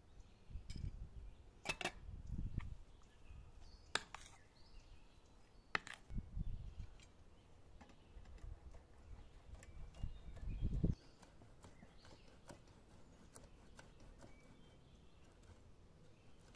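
Scattered clinks and taps of a metal spoon and dishes being handled, with a few sharp clicks and several low thuds.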